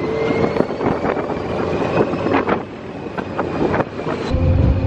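Test Track ride vehicle at speed: wind rushing over the microphone with the car's running noise and scattered rattles. About four seconds in, a heavier low rumble with a steady hum takes over.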